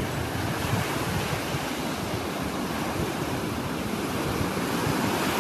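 Small waves breaking and washing up on a sandy beach, a steady rush of surf, with wind buffeting the microphone in low rumbles.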